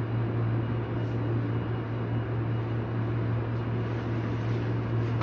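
Ride's warning siren bell running after its carbon brush and spring were replaced, giving a steady low electric buzz that holds one pitch.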